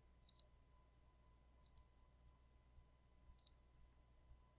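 Three faint computer mouse clicks, each a quick pair of ticks, spread evenly over the few seconds.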